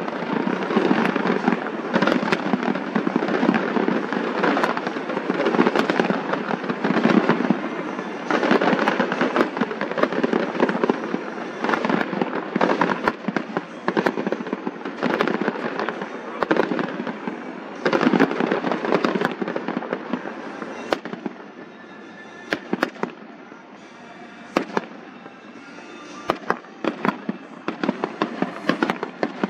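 Fireworks display: a dense run of crackling and rapid popping shell bursts. It thins to scattered pops about two-thirds of the way through, then picks up again with sharp pops near the end.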